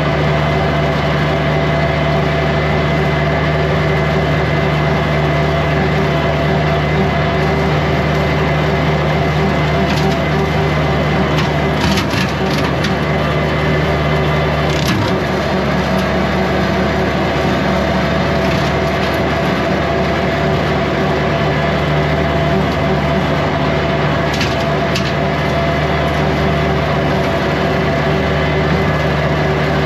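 Kubota compact tractor's diesel engine running steadily while it drives a rotary brush cutter, with sharp cracks and snaps of brush and sticks being cut a handful of times.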